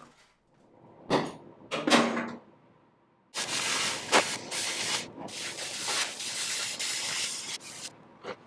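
Oxy-fuel cutting torch hissing steadily as it cuts through the old steel seat frame. The hiss starts about three seconds in, after a couple of brief noises, and drops away just before the end.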